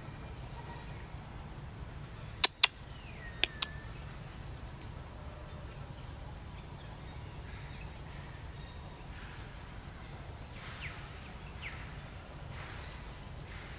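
Forest ambience: a steady low rumble with a thin, high insect tone held for about five seconds in the middle and faint chirping calls. Two sharp clicks come about two and a half seconds in, and a third a second later.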